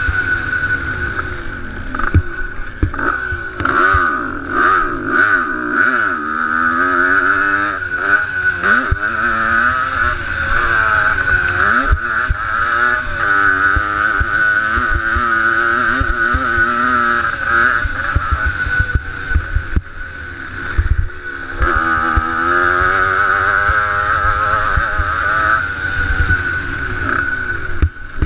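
Dirt bike engine revving up and down continuously as the rider works the throttle around a motocross track, heard from the rider's helmet, with low thumps from bumps and landings. The engine note drops away briefly about twenty seconds in, then picks up again.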